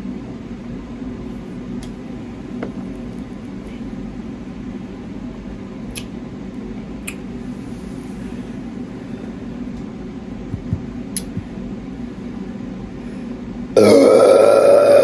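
Steady hum of a kitchen fan with a few faint clicks, then near the end a loud, drawn-out burp brought up by gulping carbonated Sprite.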